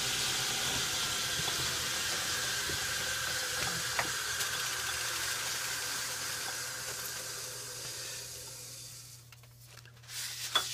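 Logan lathe running at slow speed with the four-jaw chuck turning, a steady hiss-like running noise over a low hum, which fades away over a few seconds as the lathe winds down. Near the end, a cloth rubs over the gear with a few light clicks.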